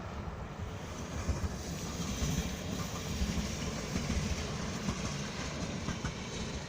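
A train running on the rails, a steady rumble of wheels and running gear with a few sharp clicks near the end.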